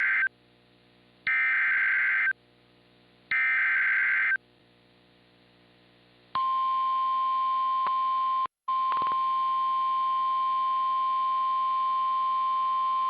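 EAS/SAME header data bursts, screechy digital tones: a clipped first burst, then two one-second bursts about two seconds apart. About two seconds later the steady 1050 Hz weather radio warning alarm tone begins, dropping out once briefly. Together they mark the start of a new alert.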